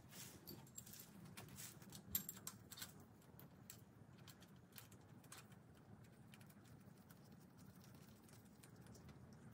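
Faint, scattered light metallic clicks and taps as pushrods and rocker arms are set by hand onto a Ford Ranger OHV engine's cylinder head. The clicks are busiest in the first three seconds, with one sharper click about two seconds in.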